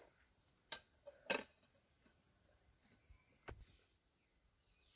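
Three faint short clicks and taps of a metal cake tin and a plate being handled as a jelly cake is turned out of the tin onto the plate, over near silence.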